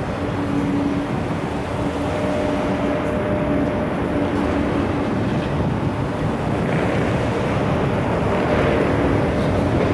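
A train running by: steady rolling noise with a faint, steady electric hum, getting slightly louder near the end.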